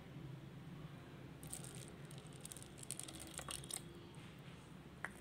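A little water poured into a toy plastic pan of red lentils, a faint patter and crackle lasting a couple of seconds, followed by a single sharp click near the end.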